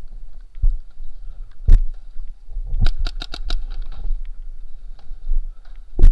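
Paintball marker firing: a single shot, then a quick string of about six shots, then another single shot near the end, over a steady low rumble.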